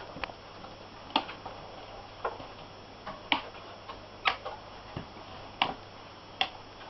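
A series of sharp clicks or taps, about one a second at an uneven pace.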